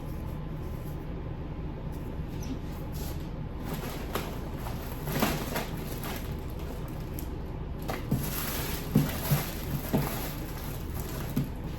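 Plastic packaging rustling and crinkling, with scattered small clicks and knocks as a small product is handled and unwrapped, over a steady low hum.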